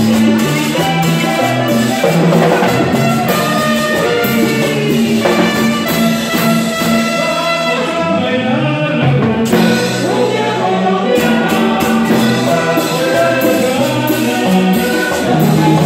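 Salsa music with horns and steady percussion, playing continuously at full volume.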